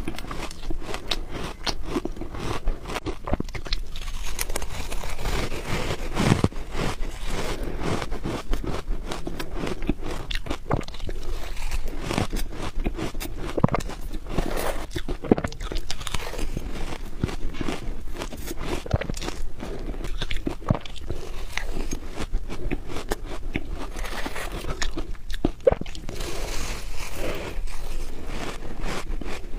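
Close-up bites into soft freezer frost and shaved ice, crunching and squeaking, with a constant irregular crackle of packed ice being bitten and chewed.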